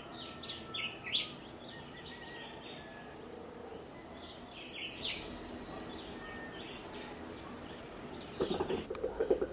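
Rainforest birds chirping in quick high calls, in two clusters, over a steady high insect drone. Louder, lower pulsing sounds come in near the end.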